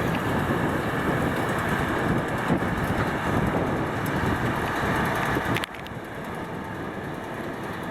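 Tractor and baler running in a field, a steady mechanical noise with wind on the microphone. A little over five seconds in it drops suddenly to a quieter level.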